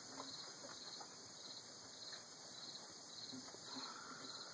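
Faint insect chirping that repeats evenly, over a low background hiss.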